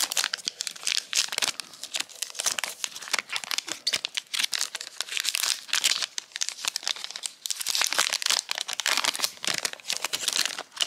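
Foil trading-card pack wrapper crinkling and crackling as gloved hands handle it and tear it open, a dense, continuous run of rustles and crackles.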